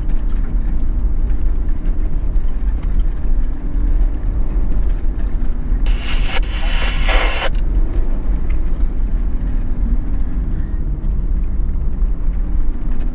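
A four-wheel drive's engine running in low range down a steep dirt track, heard from inside the cabin as a steady low rumble. About six seconds in, a brief tinny voice-like burst comes over the two-way radio.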